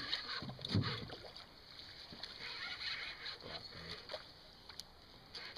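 Water sloshing and splashing around a small boat, with a brief low voice sound about a second in.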